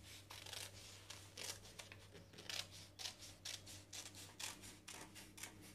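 Scissors cutting along a curved line through brown pattern paper: a steady run of snips, about two a second.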